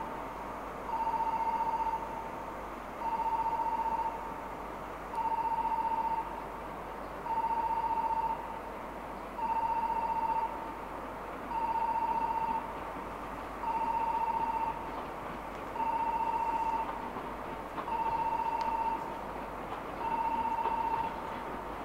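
Station platform train-approach warning tone: a single-pitched electronic beep about a second long, repeating about every two seconds, ten times. It warns that a train is arriving at the platform.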